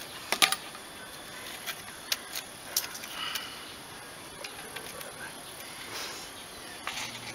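Scattered light clicks and rustles of plastic cord being pulled and knotted around a bamboo stool's metal ring, over a faint steady hiss.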